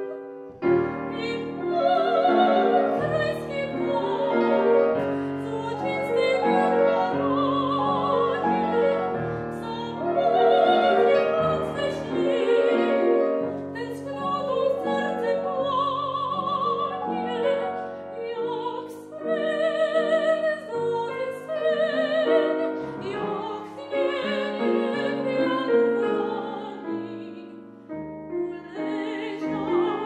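A woman singing a classical art song in an operatic style with vibrato, accompanied by a grand piano.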